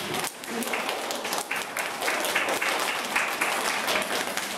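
Applause from a roomful of young children and adults: many hands clapping steadily.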